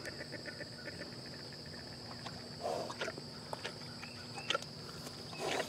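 Steady, high-pitched insect chorus of crickets chirring, with a couple of soft rustles and a few faint clicks.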